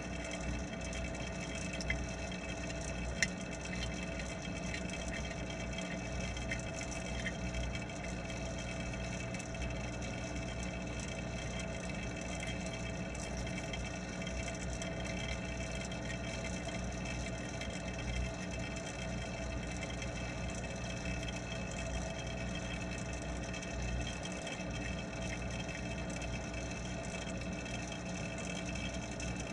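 Steady hum of the pond's water pump running, with a wash of water noise, picked up through the submerged camera. Two small clicks come about two and three seconds in.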